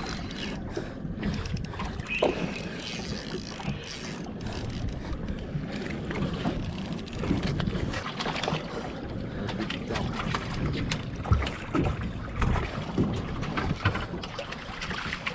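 Wind buffeting the microphone and water slapping against a small boat's hull, with scattered knocks and clicks throughout.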